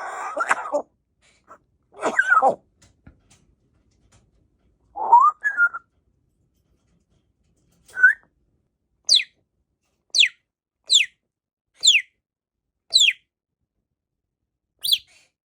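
African grey parrot vocalizing: two short harsh calls at the start, a rising whistle about five seconds in, then a run of five quick high whistles that sweep steeply downward, about one a second, and one more near the end.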